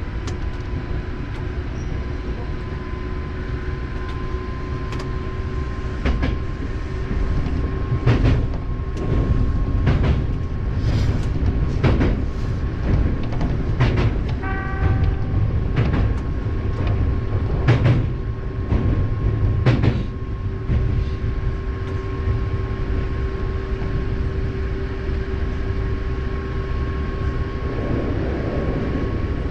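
Hankyu 7000-series electric train running on the Kobe Line, heard from inside the front car: a steady rumble with a constant whine, and a series of sharp clicks over the rail joints through the middle of the stretch. A short ringing tone sounds about fifteen seconds in.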